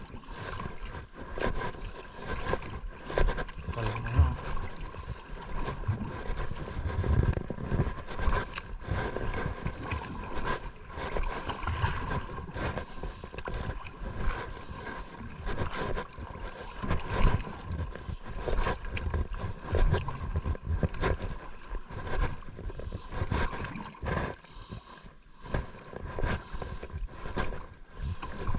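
Sea water sloshing and slapping against the hull of a small outrigger boat while a conventional jigging reel is cranked in. Frequent knocks of handling noise sound close to the microphone, and a faint steady hum sits underneath.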